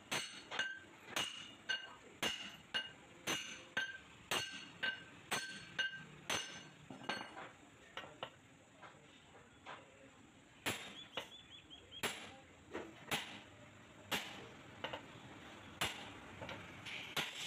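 Hammer striking a steel plate laid over a bush, driving the bush into the front bore of a Mahindra 575 DI tractor's front axle: ringing metal-on-metal blows about two a second for some seven seconds. After a few seconds' pause, single strikes come now and then.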